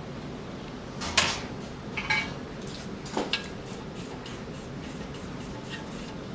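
A few light clinks and taps of small hard objects being handled and set down, the loudest about a second in and a quick pair near the middle, over steady background hiss.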